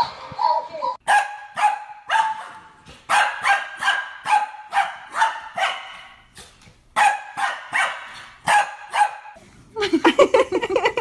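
A small dog barking repeatedly in runs of short, sharp, high-pitched barks, about two a second, with short pauses between the runs. Near the end the barking stops and a person's voice starts.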